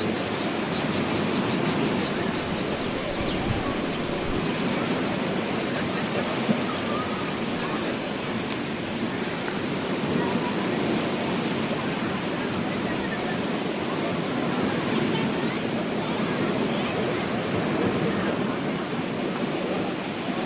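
Beach ambience: a steady wash of surf and wind with a continuous high, rapidly pulsing insect trill over it.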